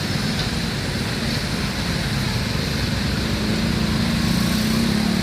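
Steady low rumble of motor vehicle engines, with a droning engine note that comes in a little past halfway.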